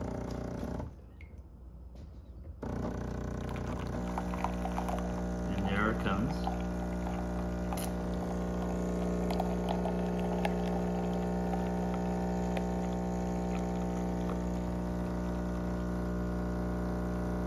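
Jura A1 espresso machine brewing: after a short lull, its pump starts about three seconds in and hums steadily while coffee pours from the spout into a mug.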